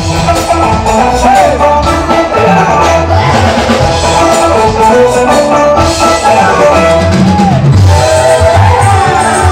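Live dangdut band (orkes Melayu) music played loud through PA speakers, a drum kit keeping a steady beat under a melody line.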